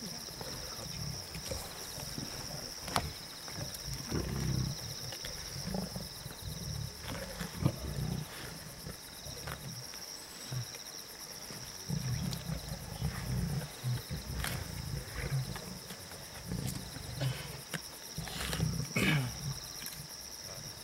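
Lions feeding on a kill, growling in several low rumbling bouts, with scattered sharp clicks among them.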